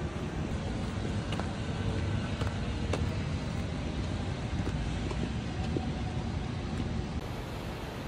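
Steady low outdoor rumble of distant road traffic, with a few faint ticks.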